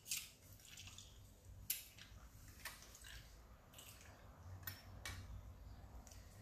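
Faint clicks and squelches from a hand-held metal citrus squeezer wringing the last juice out of already-pressed lemon halves, with juice dripping into a plastic bowl. About six short, sharp clicks, spaced irregularly.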